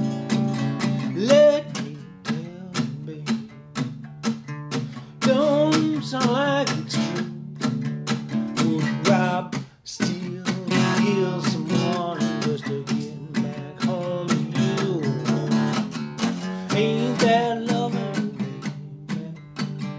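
Steel-string acoustic guitar strummed in a steady, rhythmic blues pattern over a repeating bass line. A man's voice sings along in a few phrases between the strummed passages.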